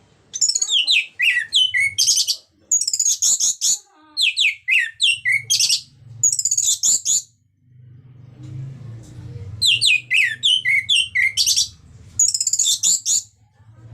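Orange-headed thrush singing a loud, rapid song of quick falling notes in two long bursts of phrases, with a break of about two seconds in the middle. A low rumble runs underneath from about halfway through.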